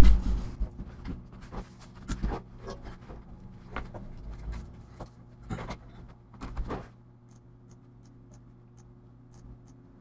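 Hands handling a laptop's plastic case on a desk: a sharp knock at the start, then scattered light clicks and taps for about seven seconds, then near quiet.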